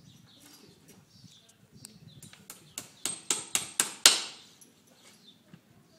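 Farrier's hammer driving horseshoe nails into a horse's hoof: a run of about nine quick metallic taps, roughly four a second, starting about two seconds in, the last one the loudest.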